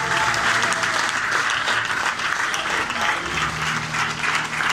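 A crowd of guests applauding, many hands clapping steadily together.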